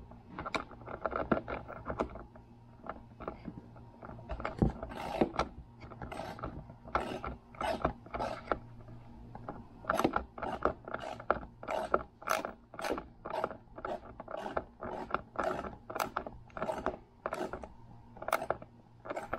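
Small socket ratchet clicking in short back-and-forth strokes, about two a second through the second half, as a nut is tightened on a switch terminal.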